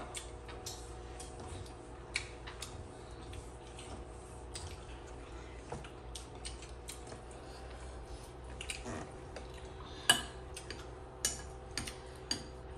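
Occasional light clicks and clinks of plates, bowls and a serving spoon at a dinner table as people eat, the sharpest about ten seconds in, over a steady low hum.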